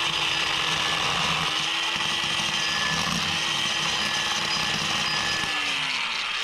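DeWalt electric drill running a reamer against the edge of a freshly drilled bolt hole in steel rail, deburring it: a steady motor whine over a hiss of metal being cut. The motor's pitch falls near the end as it slows.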